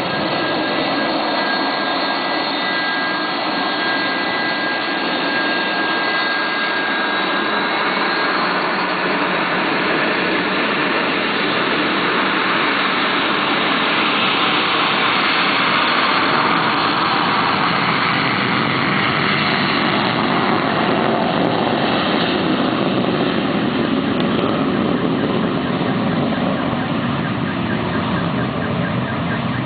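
Boeing 737-200's Pratt & Whitney JT8D jet engines running very loud as the airliner moves away down the runway, with a high whine that fades out after the first several seconds.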